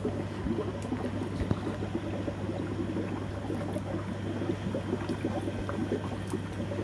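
Aquarium water bubbling and trickling in small irregular gurgles over a steady low hum.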